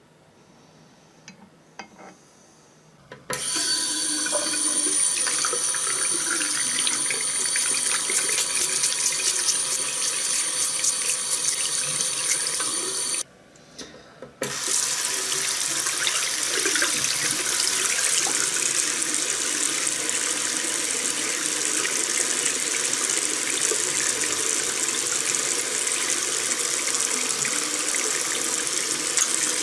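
Tap water running in a steady stream into a bathroom sink, over the part being rinsed. It starts about three seconds in after a few faint clicks, and cuts out for about a second past the middle before running on.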